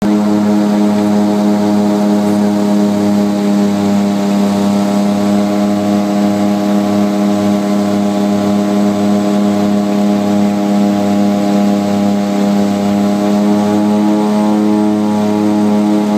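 Cabin sound of a small twin-turboprop airliner on landing approach: the engines and propellers running steadily with a strong low hum and a slow, even throb.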